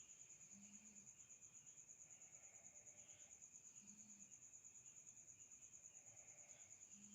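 Faint high-pitched cricket trill, a steady run of rapid, even pulses, with fainter chirping lower down.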